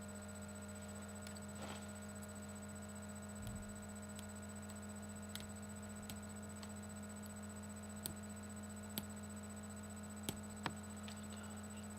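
Steady electrical hum with a few faint, scattered clicks from small plastic parts of a digital camera being handled as an LCD screen's ribbon cable is disconnected.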